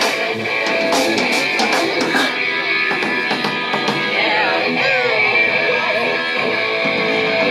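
Electric guitar playing loud, with sustained and bending notes, as a metal band sound-checks through the amplification; a few drum hits come in the first couple of seconds.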